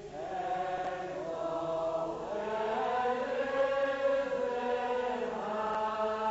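A Scottish Presbyterian congregation singing a psalm unaccompanied, with no organ, in slow, long-held notes that slide gently from one pitch to the next.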